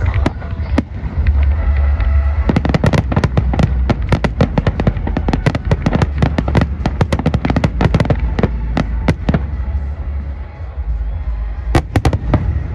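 Aerial fireworks display: a rapid barrage of bangs and crackles from about two and a half seconds in until about nine seconds, then thinning out, with a couple more sharp reports near the end.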